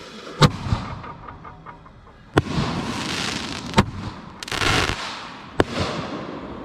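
Firework mortar shells firing: four sharp bangs, one to two seconds apart, with hissing and crackling between them.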